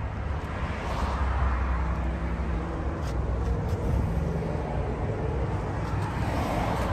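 A motor vehicle engine humming with a few steady low tones that set in about a second and a half in and fade after about five seconds, over outdoor road noise.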